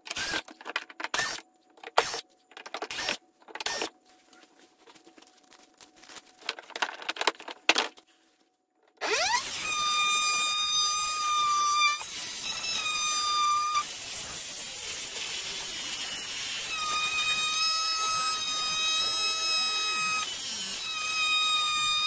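Cordless drill-driver backing screws out of a plastic ride-on car body in short, separate bursts. About nine seconds in, a cordless power tool spins up and cuts steadily through the hard plastic body with a high, steady whine.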